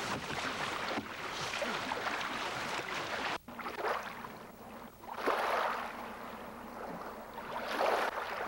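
Water splashing and rushing around a paddled canoe, with wind noise. The sound drops out briefly about three and a half seconds in, then comes back as swelling rushes about every two seconds.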